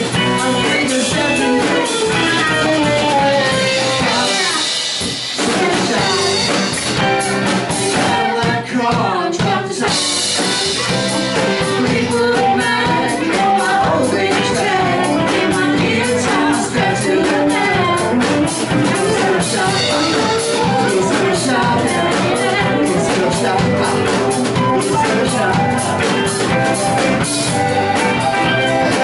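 Live rock band playing: electric guitars, bass guitar and drum kit, with a singer.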